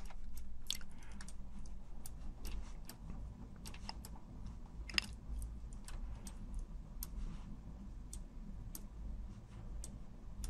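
Irregular light clicks of a computer mouse and keyboard, a slightly sharper one about five seconds in, over a faint low hum.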